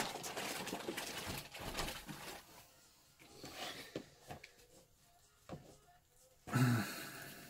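Soft rustling and light taps of hands working clay onto a crinkly tinfoil armature. About six and a half seconds in comes a brief, low, hum-like voice sound, the loudest thing heard.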